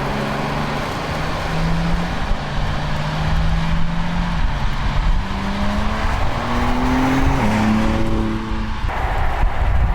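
BMW M4 Competition's 3.0-litre twin-turbo inline-six running, holding a fairly steady note at first. About halfway through it revs up, the pitch rising, then dropping sharply at a gear change about seven seconds in. Its note cuts out abruptly near the end, leaving a low rumble.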